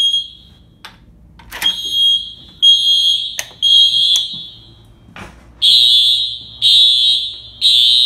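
Wall-mounted fire alarm horn sounding the temporal-three evacuation signal: high-pitched blasts in groups of three, about one a second, with a longer pause between groups, ear-piercing. A few sharp clicks fall in the pauses.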